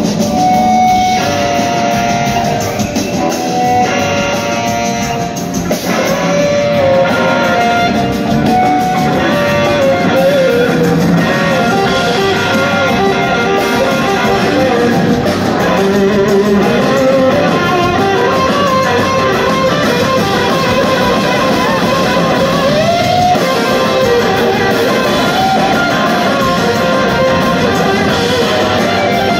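Live rock band playing electric guitars over a drum kit, with a lead guitar line that bends and glides in pitch, recorded from among the audience.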